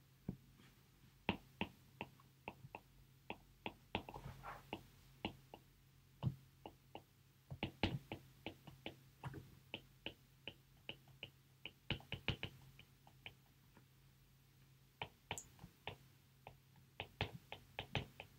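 Stylus tip tapping and clicking on a tablet screen while writing by hand: faint, irregular clicks several a second, pausing for about a second and a half past the middle. A low steady hum lies underneath.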